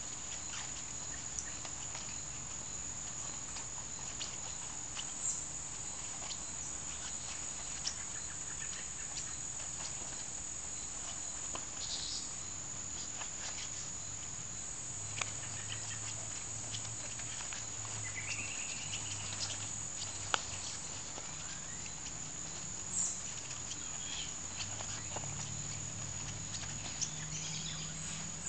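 Steady high-pitched drone of crickets chirping, with scattered light clicks and taps and stretches of low rumbling in the background.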